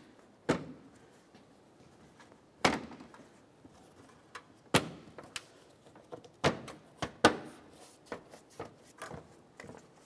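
Plastic upper grille trim panel on a 2006–2011 Honda Civic being pressed down into its clips by hand: a run of irregular sharp snaps and knocks, about a dozen, several of them loud.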